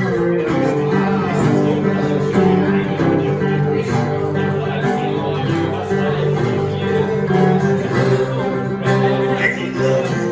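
Live band playing an instrumental passage with guitar to the fore, no vocals.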